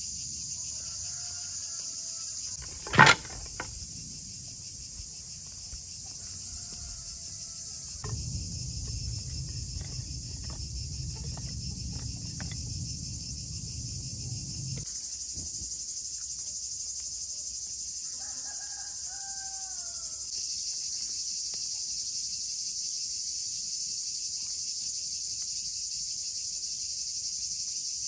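Steady, high-pitched chorus of insects, with a few short bird chirps. A single sharp click about three seconds in is the loudest sound, and a few faint knocks follow in the middle.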